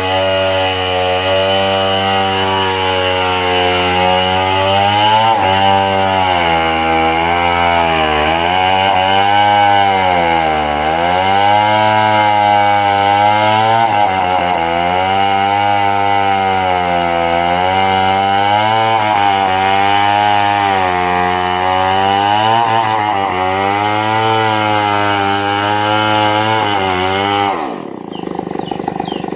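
Chainsaw running at full throttle while cutting wood, its pitch sagging and recovering again and again as the chain bites under load. It cuts off abruptly near the end.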